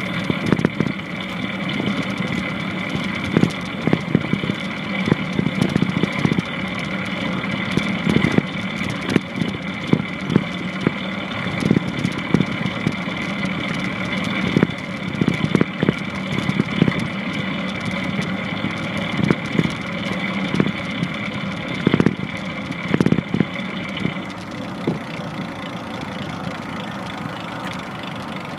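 Longboard skateboard wheels rolling on pavement: a continuous rumble with a steady high whine, broken by irregular sharp knocks. The whine changes about three-quarters of the way through.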